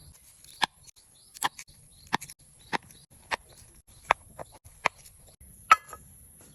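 A series of short, sharp knocks at a steady pace, about one every two-thirds of a second. One near the end has a brief ringing tone.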